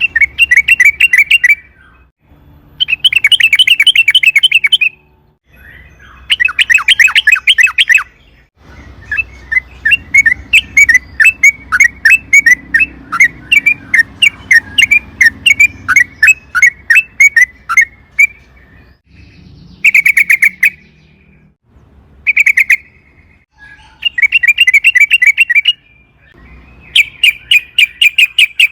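Yellow-vented bulbul (trucukan) singing in bursts of fast, repeated chattering notes, one long rolling run in the middle, a lure song meant to set other trucukan singing.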